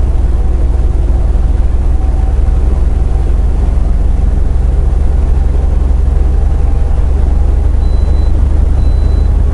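Steady low drone of a semi truck's engine and road noise heard inside the cab while cruising on the highway. Near the end a short high beep starts, repeating about once a second.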